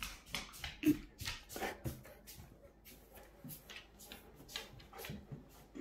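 Newfoundland dogs moving on a hardwood floor: irregular clicking and shuffling of claws and paws, with a brief low sound about a second in.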